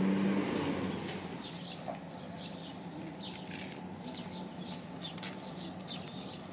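Small birds chirping in quick, short high notes, over a low hum that fades out within the first second.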